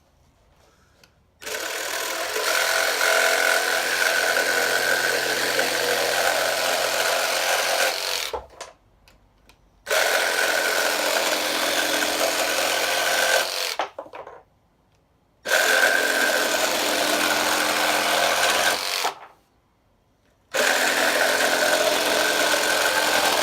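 Milwaukee M12 cordless jigsaw (M12-JS) cutting through chipboard, in four runs of several seconds each with short stops between.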